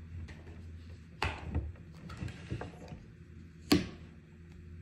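Tarot cards being handled: two sharp snaps, about a second in and again near the end, with faint ticks between.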